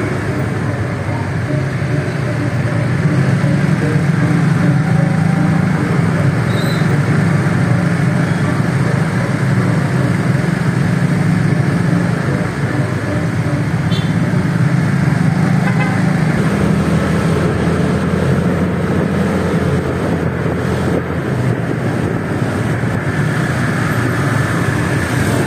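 Motorbike and scooter engines running steadily at low speed in a convoy, heard from the back of one of the bikes, with a continuous low drone.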